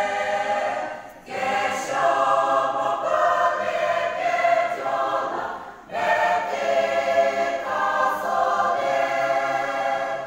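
Women's church choir singing in unison, with short breaks between phrases about a second in and again near six seconds.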